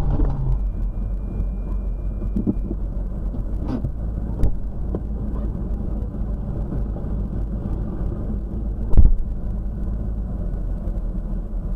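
Car driving: steady low engine and road rumble, with a fainter knock near the middle and one loud, sharp thump about nine seconds in.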